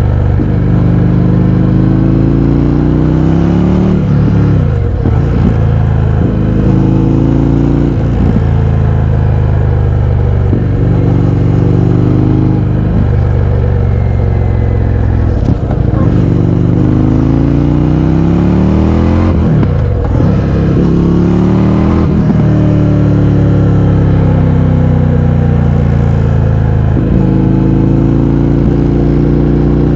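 Indian FTR 1200's V-twin engine, loud through an Akrapovič exhaust with the baffles removed, under way on the road. Its pitch climbs as it pulls and falls sharply again, about eight times over the stretch.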